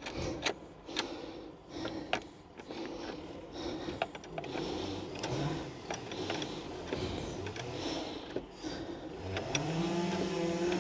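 Scattered metal clicks and clinks of a spanner tightening a cable onto a battery terminal. Near the end a petrol strimmer engine comes up outside, its pitch rising.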